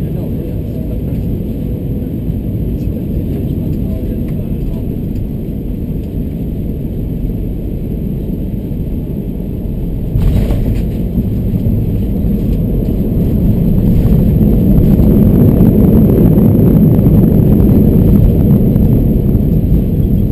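Cabin noise of an Airbus A321 landing: steady engine and airflow noise over the runway, then a sudden thump of the main wheels touching down about halfway through. After that comes the rumble of the wheels rolling on the runway, growing louder a few seconds later as the ground spoilers are up and the engines spool up into reverse thrust.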